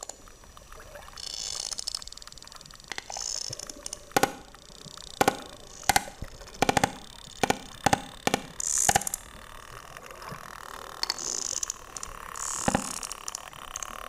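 Sperm whales clicking underwater: sharp, loud clicks, roughly one every half second to a second, crowding closer together in the middle, over a steady wash of water noise with brief high hissing patches.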